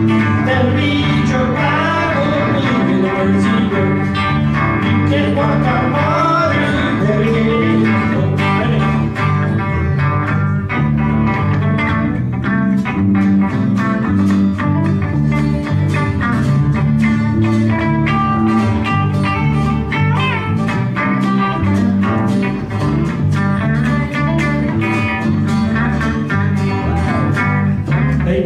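Live band music: electric bass, a strummed acoustic guitar and an electric lead guitar playing a melody over them, with no lyrics picked up.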